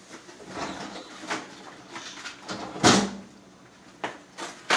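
Handling noises from food preparation: rustling and several knocks, the loudest about three seconds in, with a sharp click near the end.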